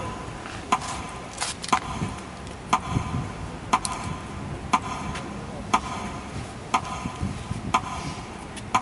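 Clock ticking steadily, about one tick a second.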